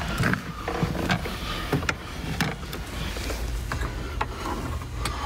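Handling noise as someone moves around inside the car: scattered sharp clicks and knocks over rustling, with a low steady hum coming in about three and a half seconds in.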